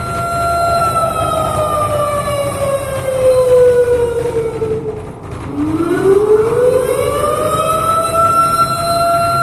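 A siren wailing on a steady tone, which slowly falls in pitch, bottoms out about five seconds in, then climbs back up to its steady tone.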